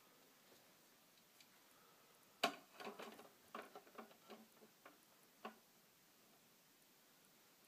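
Light clicks and taps of a plastic Monster High doll and its stand being handled and set down on a shelf, a quick cluster of them starting about two and a half seconds in and stopping about three seconds later; otherwise near silence.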